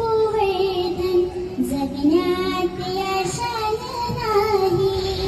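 A young girl singing solo in Marathi, drawing out long wavering notes in a slow, ornamented phrase.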